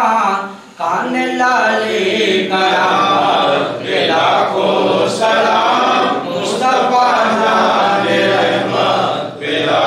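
A group of men chanting a devotional recitation together in unison, with a brief pause just under a second in.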